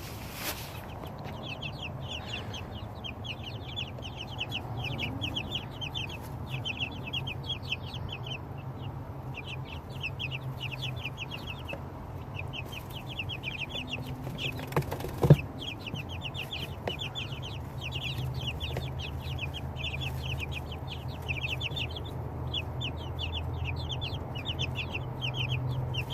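Young chickens peeping steadily, many short high calls in quick runs, over a low steady hum. A single sharp knock about fifteen seconds in.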